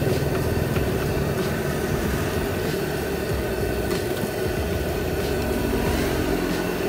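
Batagor deep-frying in a wok of hot oil, bubbling and sizzling steadily over a low rumble, the pieces nearly cooked.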